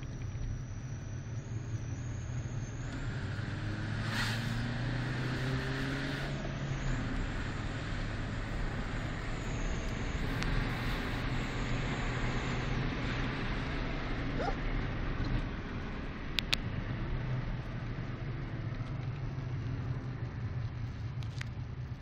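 Fiat Punto mk2 1.2 8v four-cylinder engine running as the car drives and accelerates, its pitch rising about three to seven seconds in. A thin, high-pitched whistle from an exhaust-mounted fake turbo whistler stays on top of the engine and steps up and down in pitch. Two sharp ticks come about two-thirds of the way through.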